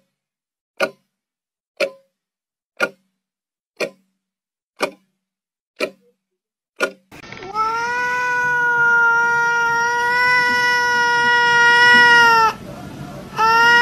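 About seven short sharp clicks, evenly spaced about one a second. Then a cat's long, loud cry, held at a nearly level pitch for about five seconds, broken briefly by a breath near the end and then taken up again.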